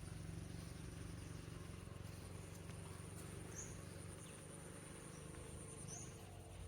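Faint, steady high-pitched insect trill over a low hum, with two short high chirps about three and a half and six seconds in.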